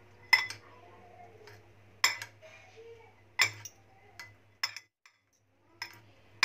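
Two metal spoons clinking against a glass mixing bowl while tossing poha (flattened rice). There are about eight sharp, irregularly spaced clinks.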